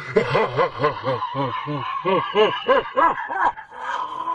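A man's deep laugh, a rapid run of 'ha' syllables about four a second, each rising and falling in pitch. Near the end it gives way to a long held note.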